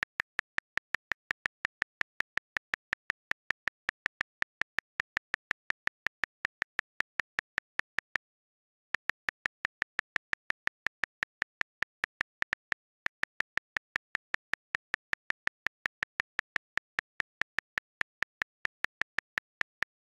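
Calculator app key clicks repeated at an even rate of about five a second, each one a short sharp tick. The clicking stops briefly about eight seconds in and again, more briefly, about twelve and a half seconds in.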